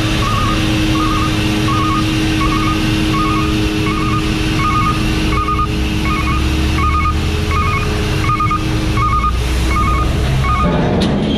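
Hydraulic tailgate of a Mack side-loader garbage truck being lowered shut: the Mack MP7 diesel runs under a steady hydraulic pump whine while a warning alarm chirps in quick warbled beeps about every 0.7 s. Near the end the whine and the beeping stop, followed by a brief rush of noise as the tailgate closes.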